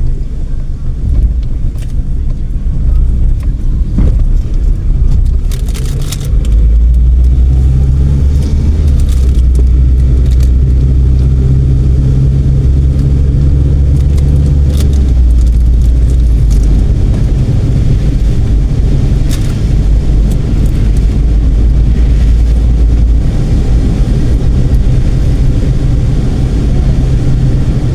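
A car on the move: a steady low engine and road drone that grows louder about six seconds in, with a few sharp knocks along the way.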